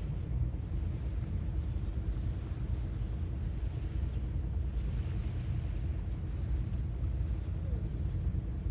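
Sea waves washing in under a steady low rumble, with a soft wash swelling about halfway through.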